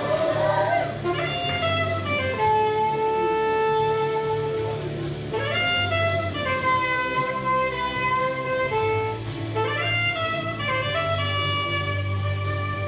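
Instrumental music: a melody of long held notes that scoop up into a new phrase about a second in, again near the middle and again about three-quarters through, over a steady bass.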